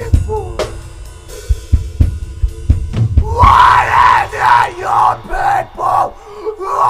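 Metalcore studio demo, mastered very loud: a full band with pounding kick and snare drums, joined about three seconds in by harsh screamed vocals.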